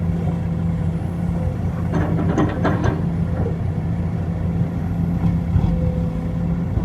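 Heavy diesel engine running steadily, with a brief burst of noise reaching high up about two seconds in.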